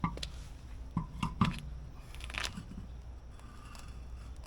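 Handling of the spare tire and tools: a few sharp knocks in the first second and a half and a short scrape a little later, over a steady low hum.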